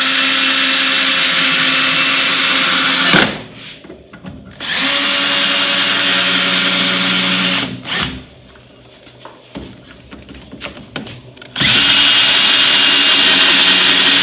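Cordless drill driving screws to fix a hive's mounting bracket to timber, running in three steady bursts of about three seconds each with short pauses between.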